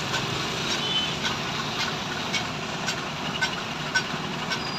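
Street traffic: vehicle engines running and passing, a steady rumble with scattered small clicks and knocks.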